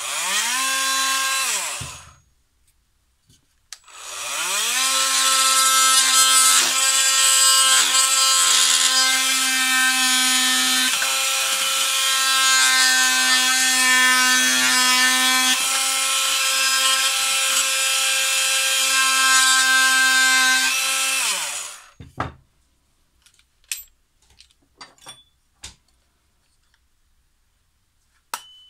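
A small electric motor spins up to a steady high pitch, runs for about two seconds and winds down. It starts again about four seconds in, runs steadily for roughly seventeen seconds and then winds down with a falling pitch. A few light clicks and clinks follow.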